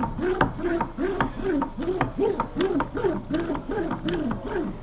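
A small fibreglass consolidation roller is rolled quickly back and forth over wet resin and glass mat in a corner radius, pressing out the air. It squeaks on each stroke, about two to three rising-and-falling squeaks a second, with light clicks in between.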